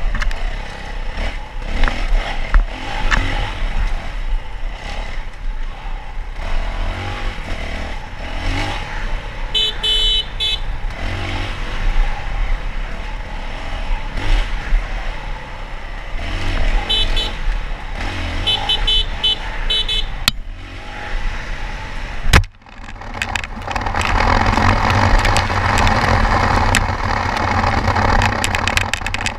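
Dirt bike engine running along a rough trail, its pitch rising and falling as the throttle is worked, with rattles and knocks from bumps. There is a sharp knock about twenty-two seconds in, and after it a louder rushing noise over the engine for the rest of the ride.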